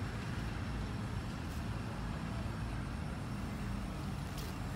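Steady low rumbling background noise, with a couple of faint ticks.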